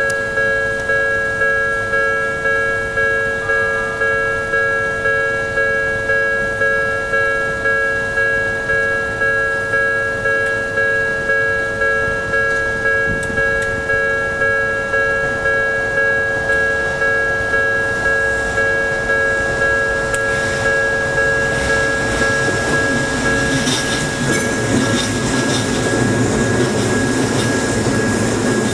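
Japanese level-crossing alarm ringing in steady repeated strokes, a little more than one a second, each stroke dying away. From about twenty seconds in, the rising rumble of an Odakyu Odawara Line train passing over the crossing joins the alarm and grows loudest near the end.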